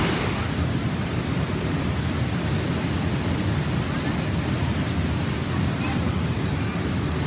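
Steady rushing of a river waterfall, an even noise that does not let up.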